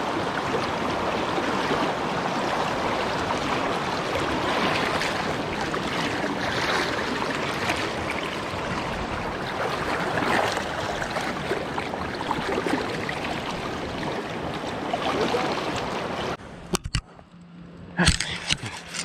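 Swift creek floodwater rushing steadily, cutting off abruptly about sixteen seconds in, followed by a couple of sharp clicks.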